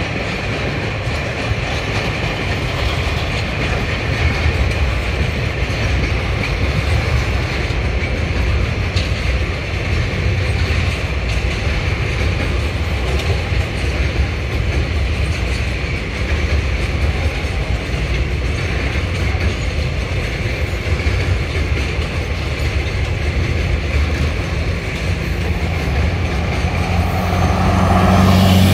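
Freight wagons (empty log bogies and container flats) rolling steadily past, a continuous rumble with the clickety-clack of wheels over rail joints. Near the end a road vehicle's engine grows louder and sweeps by close to the microphone.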